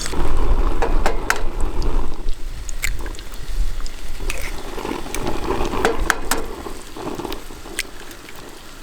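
Metal cooking utensils scraping and clinking in a camp frying pan as the breakfast hash is dished up, with sharp clicks scattered throughout and a low rumble during the first few seconds.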